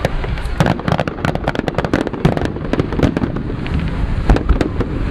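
Fireworks display: a rapid, irregular run of sharp bangs and cracks over a continuous rumble of bursting shells.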